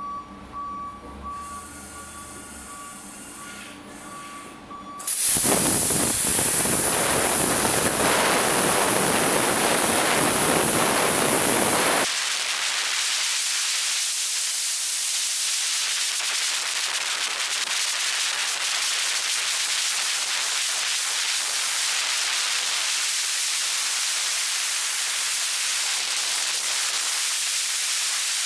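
Eastwood Elite 60 plasma cutter on a CNC table cutting Hardox 450 steel plate. After a faint intermittent beeping, the arc fires about five seconds in and cuts with a loud hissing rush and a high-pitched whine for about seven seconds, then stops abruptly. A steady hiss of air follows.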